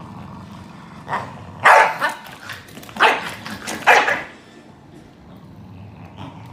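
Corgis barking at each other in a play-fight, a quick run of about six sharp barks starting about a second in and stopping after about four seconds.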